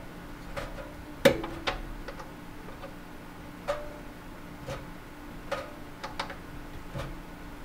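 Scattered sharp clicks and light knocks, irregularly spaced and about eight in all, the loudest about a second in, from hand work on a garbage disposal's fittings under a sink as a hose clamp is secured.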